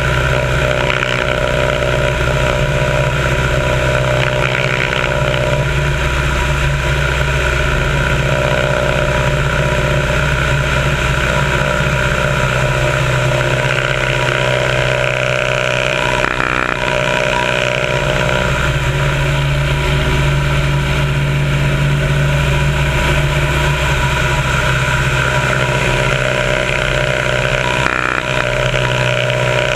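Biplane's piston engine and propeller running steadily in flight, with wind rushing hard over the wing-mounted microphone. The engine note shifts briefly about halfway through.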